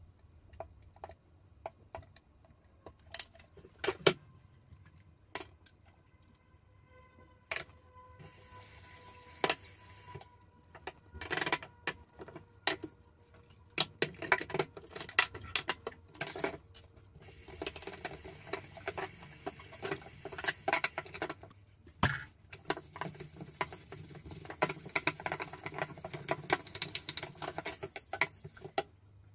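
Plastic bottles, a pump dispenser and toiletry containers handled and set down on a bathroom sink counter: scattered clicks, taps and knocks. From about eight seconds in, a steady hiss runs under them.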